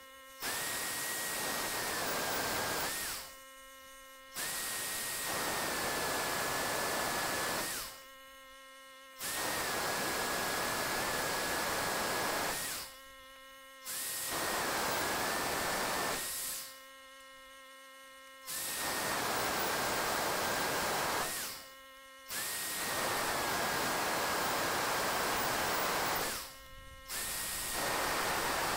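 Electric drill boring holes through steel hinge plate: a steady whining motor with cutting noise, running in spells of three or four seconds and stopping briefly six times.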